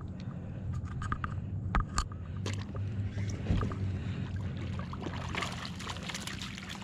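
Water splashing and sloshing as a hooked fish fights on the line, with several sharp clicks and splashes about two seconds in, over a steady low hum.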